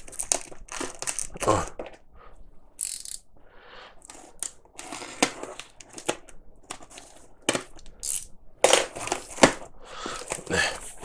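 Clear plastic packing tape on a cardboard box being slit with a small blade and pulled apart, with irregular crackles and rustles of tape, paper and cardboard. A louder burst of cardboard rustling comes near the end as the flaps are pulled open.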